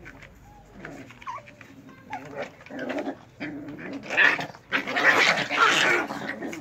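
Two Miniature Pinscher x Deer Head Chihuahua puppies growling in play as they tug-of-war over a slipper, with a few small whines early on. The growling gets louder and rougher from about four seconds in.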